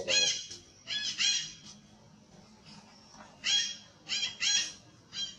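Baby long-tailed macaque giving short, shrill distress screams while an adult holds it down by the back. The screams come in three clusters: near the start, about a second in, and four in quick succession in the last two seconds.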